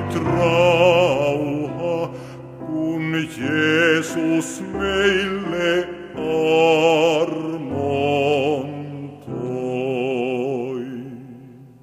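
Baritone voice singing slow, sustained phrases with wide vibrato over piano accompaniment. The last phrase is a long held note about nine seconds in that fades away, ending the song.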